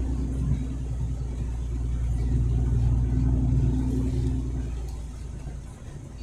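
Truck engine running with a steady low drone, fading down near the end.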